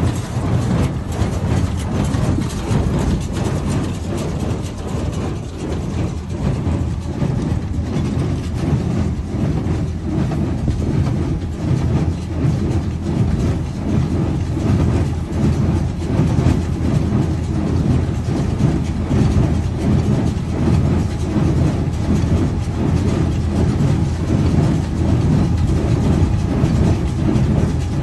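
Claas Dominant baler running, a steady rapid mechanical clatter over a low drone.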